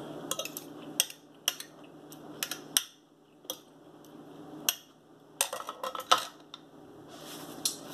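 Metal knife and fork clicking and scraping against a plate as food is cut, in scattered sharp clicks with a quick run of them about five and a half to six seconds in.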